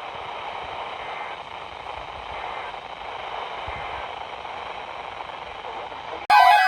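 Steady static hiss from a broadcast receiver. Near the end it is cut off by a loud, abrupt alert tone that sweeps up and down in pitch like a siren, over steady tones.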